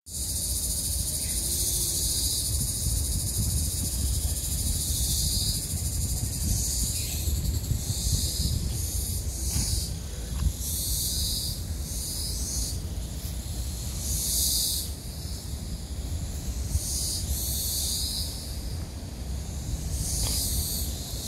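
Cicadas calling loudly in a high, shrill chorus that swells and fades in pulses of one to two seconds, over a steady low rumble.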